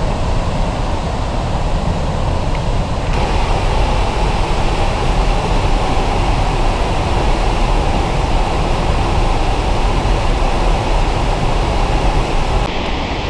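Large waterfall rushing: a loud, steady noise of falling water. Its tone changes suddenly about three seconds in and again near the end.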